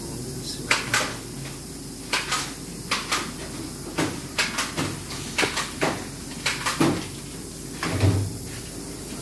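Steelco VS6/2 steam sterilizer running in its air-removal phase: a steady hum with an irregular series of sharp clicks and knocks, and a low thump about eight seconds in.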